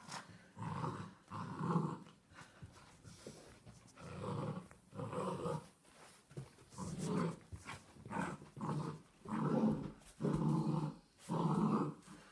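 Golden retriever puppy growling in a string of short bursts while tugging on a rope toy: play growling during a game of tug.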